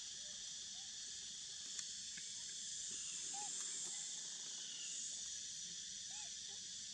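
Steady high-pitched drone of forest insects, with a few faint short chirping calls and a single sharp tick about two seconds in.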